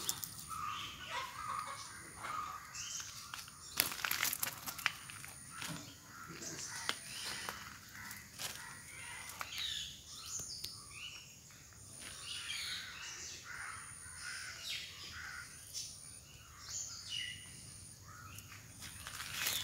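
Birds chirping and calling in short scattered notes, with a few sharp clicks about four seconds in.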